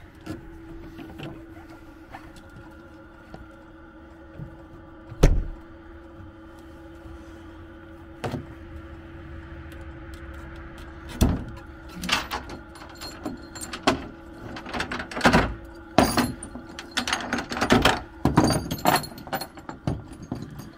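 Metal ratchet tie-down straps being released and unhooked, with the ratchets and hooks clicking, clanking and rattling: one sharp knock about five seconds in, then many quick clatters through the second half. A steady hum runs underneath.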